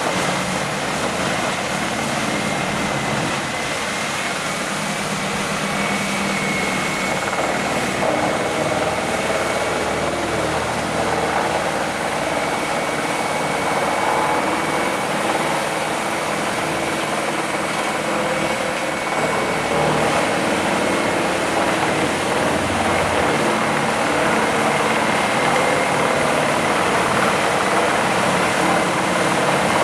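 Wood chipper running steadily under engine power, a continuous loud mechanical noise with a constant high whine over the engine hum.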